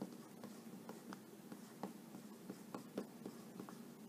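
Dry-erase marker writing on a whiteboard: faint, irregular short strokes and taps as letters are written.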